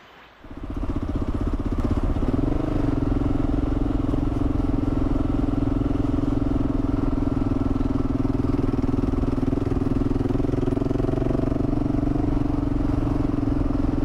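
Kawasaki KLR650's single-cylinder four-stroke engine starting up about half a second in, then running steadily.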